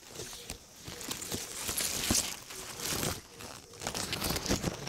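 Myoga leaves and stems rustling and crinkling as they are pushed aside and brush against the camera, in an irregular run of crackles and scrapes.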